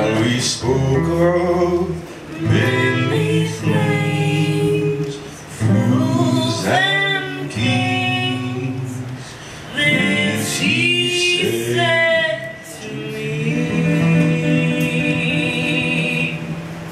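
A woman and a man singing a song together, accompanied by an acoustic guitar played with fast fingerwork.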